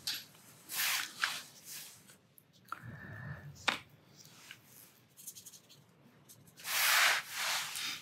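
Short rubbing and scuffing noises, with one longer, louder rub about seven seconds in.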